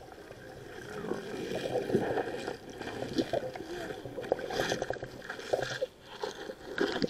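Muffled underwater sound picked up by a submerged camera: water moving and gurgling around it, with many small knocks and clicks.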